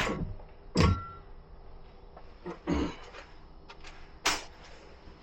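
Handling noise during the installation: three short knocks and clunks, about a second, two and a half and four seconds in, the last one the sharpest.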